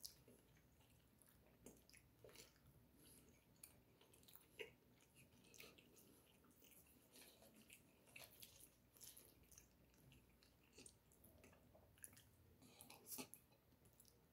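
Faint, wet chewing of a mouthful of spaghetti and meatballs, with scattered small clicks and smacks at irregular moments.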